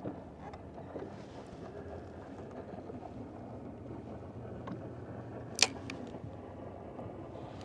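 Ambience on a fishing boat: a low steady hum under light wind and water noise, with a few small handling ticks and one sharp click about five and a half seconds in.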